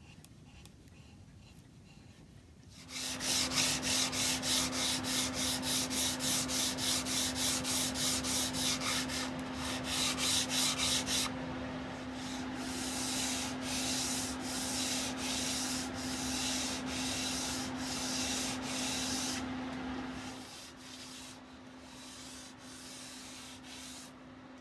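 Hand sanding of an oak moulding: quick, even back-and-forth rubbing strokes, about three a second, that start about three seconds in and give way to slower, longer strokes about halfway through, tailing off near the end. A steady hum starts along with the strokes.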